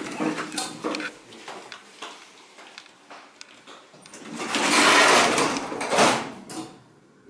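Schindler elevator car doors sliding shut after the door-close button is pressed: a rush of noise that swells and fades over about two seconds, ending in a bump as the doors meet.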